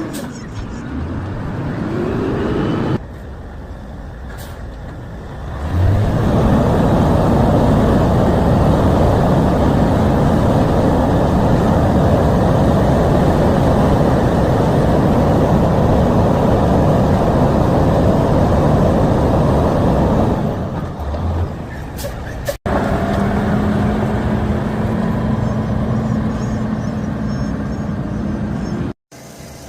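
A heavy truck running, with dense rumbling and rushing noise that is loudest through the middle. The sound breaks off abruptly a few times.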